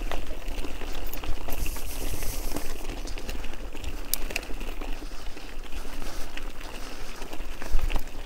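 Bicycle rolling over a rough track: a steady crackle of tyres with many small clicks and rattles over a low rumble.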